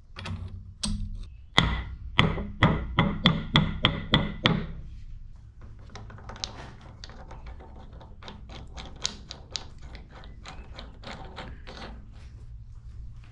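Metal knocks and clicks as a large spur gear is worked onto its shaft on an 1890s Boynton & Plummer shaper. About a second and a half in comes a run of about nine sharp knocks, roughly three a second, followed by lighter scattered clicks of the metal parts being handled.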